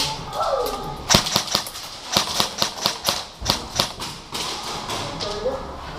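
Airsoft guns firing during a game: a string of sharp, irregular shots, about a dozen over three seconds, starting about a second in.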